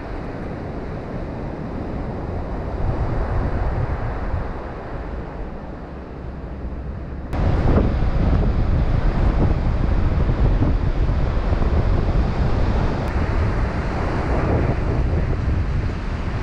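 Wind buffeting the microphone over the wash of ocean surf, a steady rumbling noise that steps up abruptly about seven seconds in.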